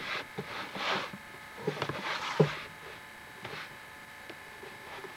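Kitten moving about on a vinyl floor: soft scattered taps with two brief rustles about one and two seconds in, over a faint steady high hum.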